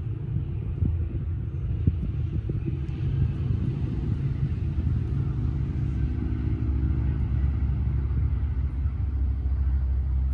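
An engine running with a low, steady rumble, which grows steadier and a little louder from about halfway through.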